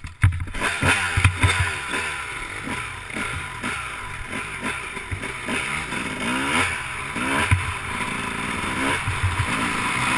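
Suzuki RM250 single-cylinder two-stroke engine revving up and dropping back over and over as it is ridden hard around a dirt track, with wind rushing over the microphone. A few knocks from the bike come in the first second.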